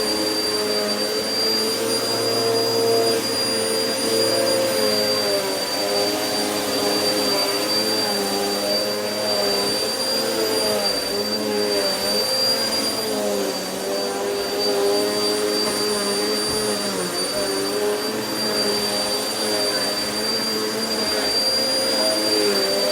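Vacuum cleaner running continuously over carpet, its motor pitch dipping and recovering again and again as it is pushed back and forth under load, over a steady high whine and the rush of airflow.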